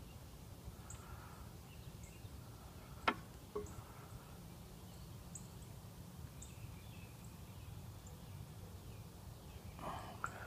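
A sharp click about three seconds in, with a smaller one just after, over a steady low rumble and faint, short high chirps that recur about once a second.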